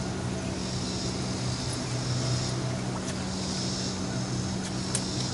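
A steady low motor hum, with a high hiss that swells and fades about every two seconds and a single sharp click near the end.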